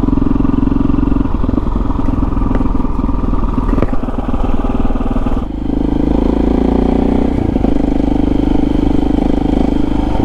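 KTM 640 Adventure R's single-cylinder engine running steadily under way; about halfway through the engine note dips briefly, then picks up again at a slightly changed pitch.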